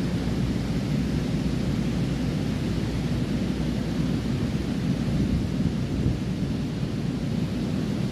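Ocean surf at the beach: a steady low roar of waves without a break.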